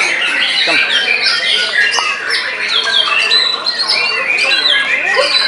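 Several white-rumped shamas singing at once: a dense, unbroken tangle of rapid whistles, chatters and harsh calls, many overlapping and falling in pitch.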